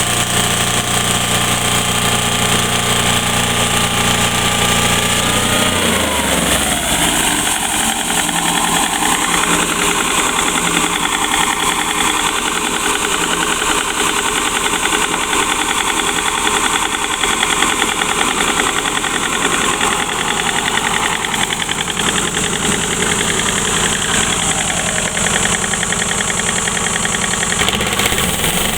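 A Woodmizer band saw mill's engine running loudly throughout. About six seconds in, the sound shifts from a steady engine note to a busier, faster running sound as the band saw works through a log. It shifts back to the steady note just before the end.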